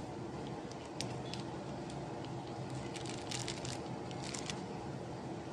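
Quiet kitchen background: a steady low hum with a few faint light clicks and taps.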